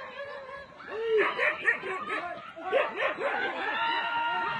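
Dogs barking repeatedly in short barks, starting about a second in.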